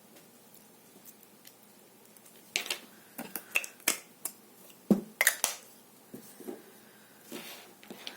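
Small hard objects clicking and clacking, a quick irregular cluster of sharp clicks starting about two and a half seconds in, with a few fainter ones near the end.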